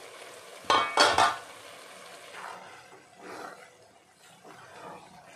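Two ringing metal clanks of cookware about a second in, then soft, irregular scraping as a silicone spatula stirs thick cooking grated-carrot halwa in a metal pan.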